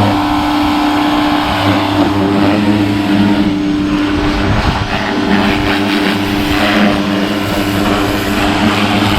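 Greenworks electric pressure washer running and spraying: a steady motor-and-pump hum under the hiss of the water jet.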